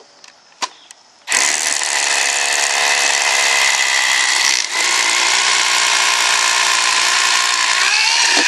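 Cordless drill with a 3/8-inch concrete bit boring a pilot hole through a plastic plate lock into the pavement. After a few light clicks it starts about a second in and runs loud and steady, with one brief dip near the middle where the bit is thrust down the hole a second time to clear it.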